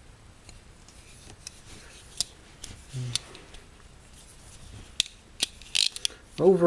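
Metal clicks and snaps from a Leatherman Surge multi-tool being handled, its tools and handles clicking as they move. The clicks are scattered at first, with a denser cluster of louder clicks near the end.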